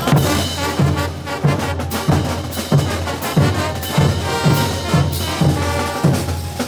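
Bolivian brass band playing a morenada: brass instruments over a steady bass drum beat of about three hits every two seconds.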